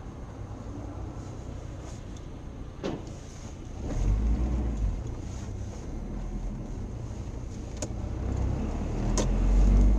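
Car engine and tyre noise heard from inside a moving car: a steady low rumble that swells about four seconds in and again near the end, with a few sharp clicks.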